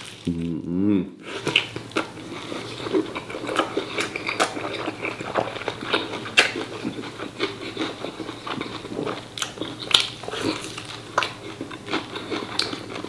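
Close-up eating sounds: chewing and mouth noises on braised pork offal, with frequent small clicks and taps of utensils. A short hummed, voiced sound comes about half a second in.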